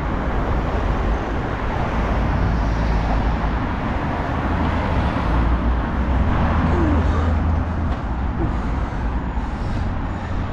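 Road traffic, cars and a van, moving through a junction over a steady low rumble, with one car passing close and loudest about six seconds in.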